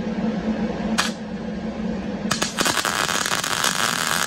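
Wire-feed MIG welder arc crackling as it burns a plug weld into a drilled hole through layered sheet steel, filling the hole. A brief crackle about a second in, then a steady, even crackle from a little after two seconds, over a low steady hum.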